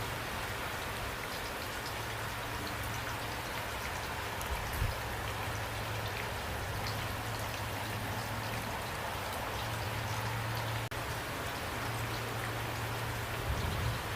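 Steady rain falling, with individual drops ticking through an even hiss and a low steady rumble underneath; the sound drops out for an instant about eleven seconds in.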